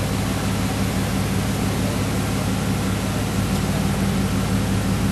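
Steady rush of floodwater pouring over a flooded low-water river crossing, with a low steady hum underneath.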